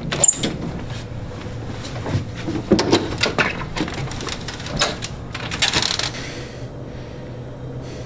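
Clicks, knocks and rattles of a front door being handled, opened and shut, with a brief metallic jingle at the start and a louder rattle about six seconds in.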